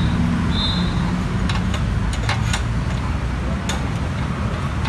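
A few short, sharp metallic clicks and taps from hands working on a bare air-cooled scooter engine, over a steady low rumble.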